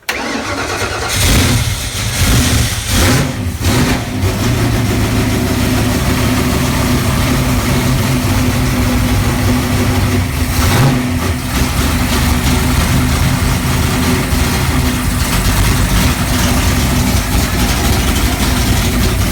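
Freshly rebuilt 408W stroker small-block Ford V8 firing up and running loud. It is the first time it has run since the rebuild, after the distributor firing order was corrected. The throttle is blipped, with surges in the first few seconds and again about ten seconds in.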